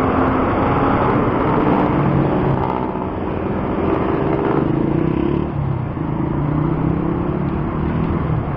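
Road traffic: engines of nearby cars and motorcycles running over a steady rush of road noise, their tones shifting in pitch a few times as vehicles speed up, slow down and pass.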